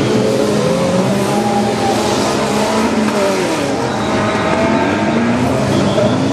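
Engines of several small hatchback race cars running hard at the same time on a dirt track, their revs rising and falling and overlapping, over a hiss of tyre and gravel noise.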